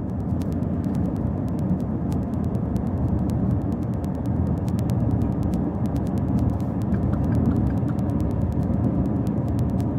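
Steady low rumble of engine and tyre noise inside the cabin of a 2013 Ford Explorer cruising along the highway.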